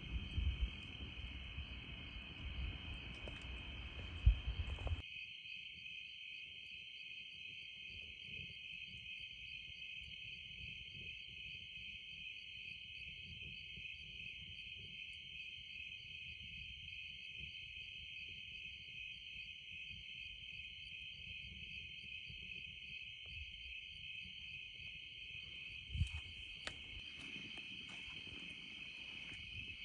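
A steady chorus of crickets chirping in fast, even pulses at night. For the first few seconds a low rumbling handling noise lies under it, with a knock about four seconds in, and it cuts off abruptly. A faint knock comes near the end.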